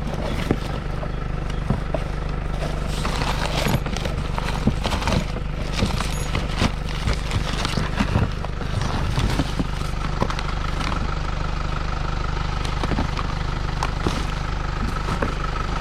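Secondhand electronics and cords being handled and rummaged through: scattered clicks and knocks over a steady low rumble.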